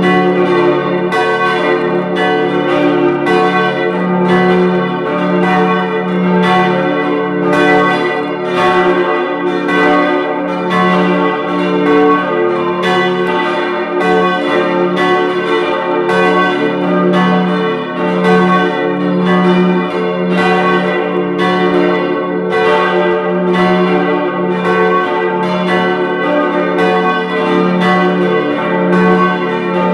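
Full peal of a four-bell church ring tuned d', f-sharp', a', b': the bells strike in a steady, overlapping, irregular sequence, about one to two strokes a second, over a continuous ringing hum.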